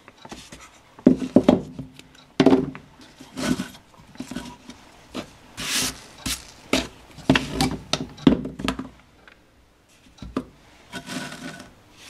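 Handling noise on a work table as a metal switch box with its plug cord and hand tools are moved, slid and set down: a string of irregular rubs, scrapes and knocks.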